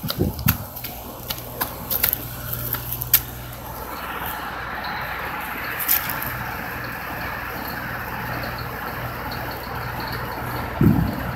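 Clicks and knocks as the phone is handled and set down, then a steady machine hum with an even rushing noise that swells about four seconds in. There is a brief low thump near the end.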